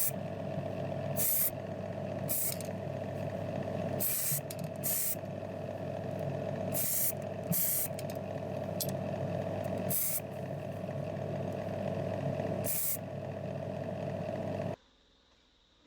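A small motor runs steadily while short bursts of hissing compressed-air spray come about ten times, each lasting a fraction of a second. The motor and hiss cut off abruptly near the end.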